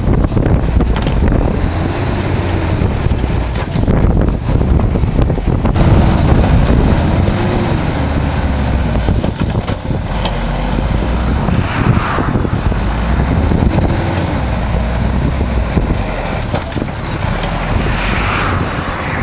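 Heavy logging truck's diesel engine running under load, a loud deep rumble whose pitch wavers up and down.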